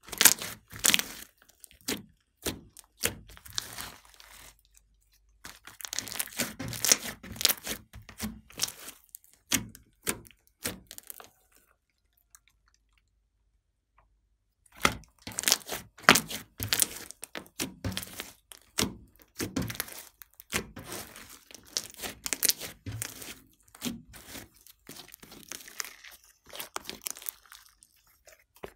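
Pink glossy slime mixed with clay being pressed, stretched and pulled by hand, giving rapid wet crackles and pops as air trapped in the slime bursts. The crackling stops for a few seconds in the middle, then resumes.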